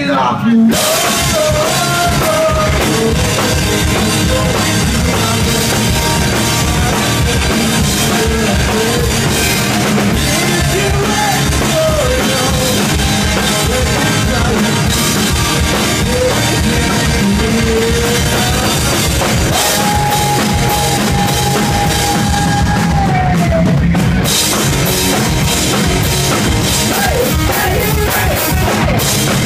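Live rock band playing at full volume: a drum kit keeping a steady beat under amplified instruments and a wandering melody line, with one long held note about two-thirds of the way through.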